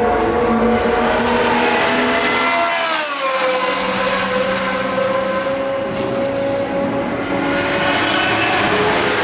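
Vintage Formula One car engines running at high revs. The pitch falls about three seconds in, holds high and steady, then climbs again near the end.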